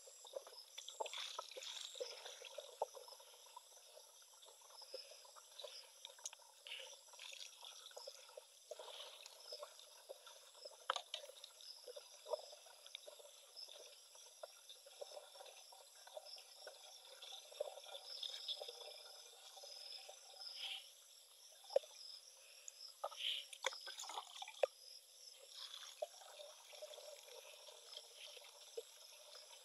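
Liquid foliar fertilizer being scooped from a plastic drum and poured through a cloth strainer into a plastic knapsack sprayer tank: faint trickling and splashing, with scattered small knocks of the plastic dipper. The straining keeps residue out of the sprayer nozzle.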